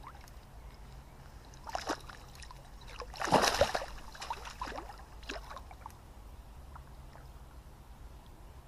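A hooked mullet thrashing at the surface in shallow water at the bank, splashing in bursts. The loudest splashes come about three and a half seconds in, with smaller ones before and after.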